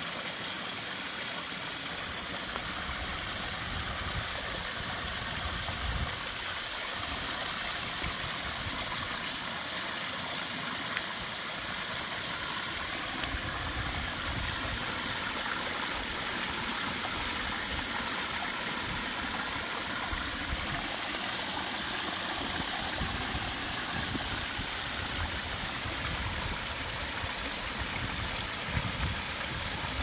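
Backyard pond waterfall running: water splashing and trickling down stacked flagstone ledges into the pond, a steady rushing and gurgling, with some low rumbling now and then.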